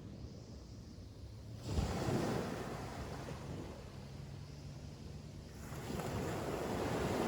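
Ocean waves breaking on a beach. One wave crashes suddenly about two seconds in and washes out over the next few seconds, and another swells up near the end.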